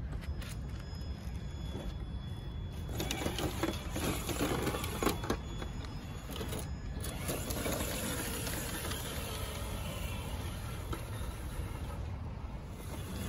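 Traxxas TRX-6 6x6 RC crawler's electric motor and geared drivetrain whirring as it crawls, with scraping and knocks of the tyres and chassis against roots and rock about three to five seconds in.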